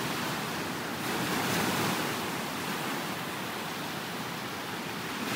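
Ocean surf: small waves breaking and washing up onto a sandy beach, a steady rush that swells a little about a second in.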